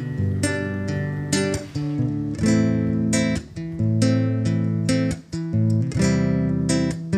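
Acoustic guitar strumming a chord progression through a loop pedal, laying down a loop to play over.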